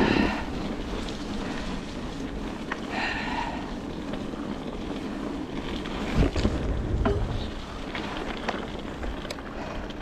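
Wind buffeting the microphone over the rolling noise of a mountain bike on a wet dirt trail, with the bike rattling and a few sharp knocks, the loudest about six seconds in.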